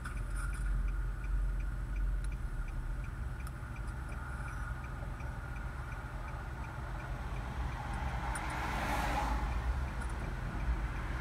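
A parked car's turn-signal blinker clicking in a steady, even rhythm over a low steady rumble. A brief rush of noise swells and fades about nine seconds in.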